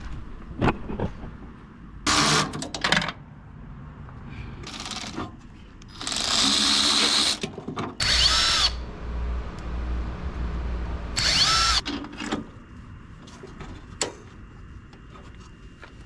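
Handheld power tool, drill-like, run in several short bursts. Its motor whines up and falls back each time the trigger is pulled, with quieter handling clatter between bursts.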